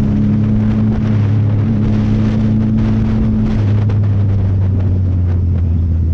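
Sport motorcycle engine running steadily under way, heard from the rider's own bike, with wind rush over the microphone. The engine note drops a little about three and a half seconds in.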